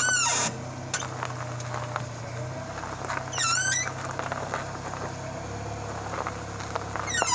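Front suspension of a 2001 Honda Accord squeaking as the steering is turned with the engine idling. It is a wavering squeak whose pitch bends up and down, heard right at the start, again about three and a half seconds in, and once more at the end, over a steady low engine hum. The owner suspects a worn lower ball joint, though it sounds like the strut.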